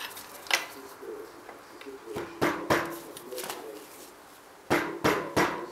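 Rubber mallet striking the cylinder head of a Kawasaki KLR650 engine, a series of sharp knocks: one early, a quick run of three about two seconds in, and three more near the end. The blows are to break the stuck head loose from the cylinder.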